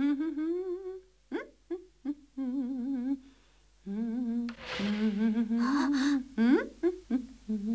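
A woman humming a tune in short phrases, her pitch wobbling, with a few light taps between phrases and a brief rustling hiss about five seconds in.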